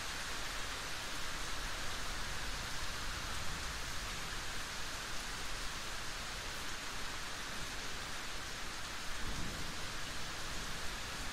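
Steady rain, an even hiss of falling drops. A low thunder rumble comes in about nine seconds in.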